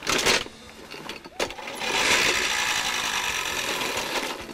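Old push reel lawnmower rolling over grass, its spinning reel blades whirring steadily against the cutter bar. There is a sharp clatter at the start and a short knock about a second and a half in.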